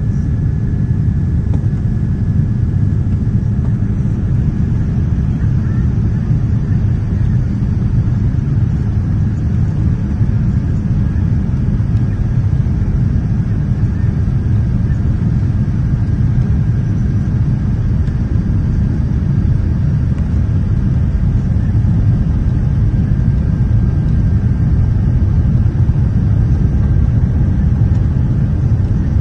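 Steady rumble of engine and airflow noise inside a Boeing 787 cabin on its descent to land, with a faint thin whine held above it; it swells slightly near the end.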